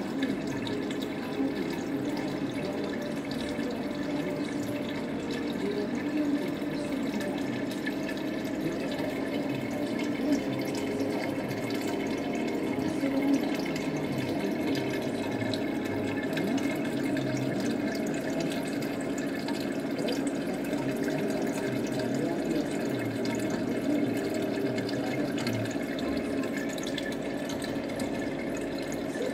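Reef aquarium's water circulation: a steady sound of running, trickling water that goes on without a break.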